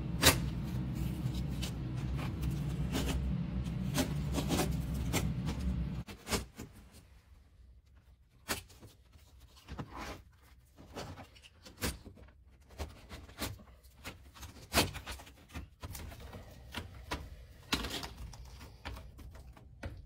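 Hook-blade roofing knife cutting through asphalt shingles, heard as irregular short scratchy scrapes and clicks, with shingle pieces being pulled loose. A steady low hum runs under the first six seconds and then stops.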